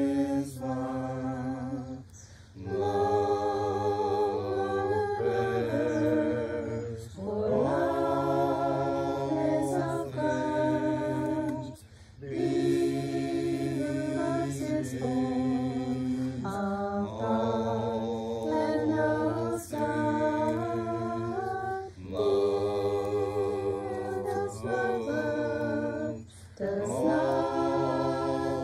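A small group of voices singing a worship song unaccompanied, in sung phrases of about four to five seconds with short breath breaks between them.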